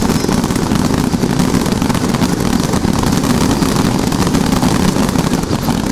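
Fireworks starmine (rapid-fire barrage) going off: a dense, continuous crackle of many small bursts with a heavy low rumble beneath, starting abruptly.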